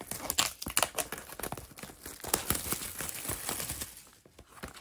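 Clear plastic shrink-wrap crinkling and crackling as it is peeled off a small cardboard blind box. The crackles die down about four seconds in.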